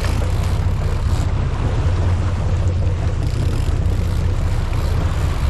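Charter fishing boat's engines running with a steady low rumble.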